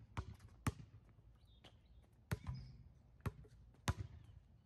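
Basketball being dribbled on a hard outdoor court: several sharp bounces at an uneven pace, with a few fainter knocks between them.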